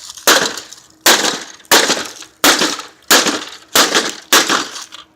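An air conditioner being smashed apart: seven hard blows in a steady rhythm, about one every 0.7 seconds, each a sharp crack with a brief rattling decay.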